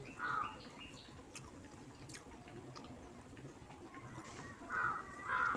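A person chewing a mouthful of rice and fish curry, with soft, wet mouth clicks. Three short calls stand out above the chewing, one just after the start and two near the end.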